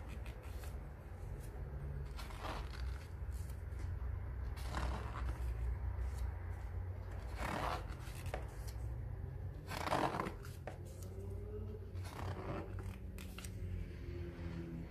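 Pages of a graphic novel being turned one after another, a papery swish about every two and a half seconds, over a steady low hum.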